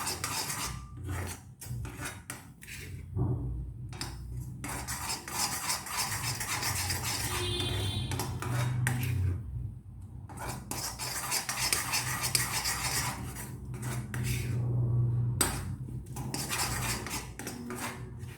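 A spoon scraping and stirring a thickening spiced syrup in a small iron kadai, with repeated scrapes and clinks against the pan in runs broken by brief pauses.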